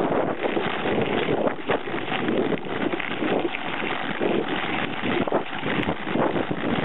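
Wind noise buffeting the microphone of a camera mounted on a moving mountain bike, mixed with the tyres rolling over a dirt track and frequent small knocks and rattles from the bike.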